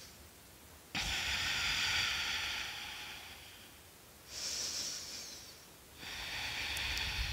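A woman breathing audibly through a held forward-folding yoga pose: three long, airy breaths. The first starts suddenly about a second in and fades slowly, a shorter one comes near the middle, and a third begins near the end.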